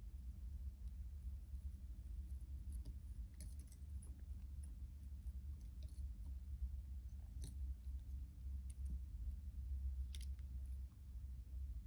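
Thin jewellery wire being wrapped by hand around a wire link: scattered faint scrapes and small metallic clicks, the sharpest about three and a half, seven and a half and ten seconds in, over a steady low hum.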